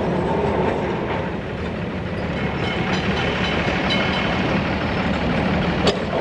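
Combustion engine of a petrol- or diesel-engined tram running with a steady low rumble, with a sharp click near the end.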